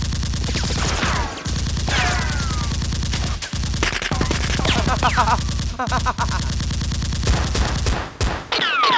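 Rapid automatic gunfire in long, steady bursts with a few short breaks, layered with falling ringing tones.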